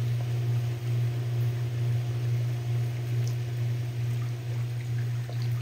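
Above-ground pool filter pump running at full speed, a steady low hum, drawing suction through the vacuum plate over the skimmer basket.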